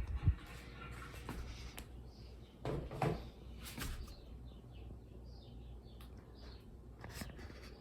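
Faint knocks and a sharp thump near the start, then a series of short, high, bird-like chirps in the second half over a low steady hum.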